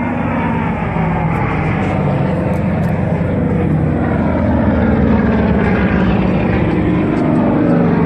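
WWII-era piston-engined fighter aircraft flying, their propeller engines running loud and steady and slowly growing louder, with a slight drop in pitch in the first couple of seconds.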